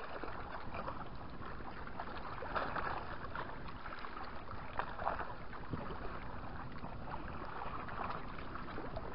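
Small waves lapping and splashing against a rocky shoreline, with irregular louder splashes.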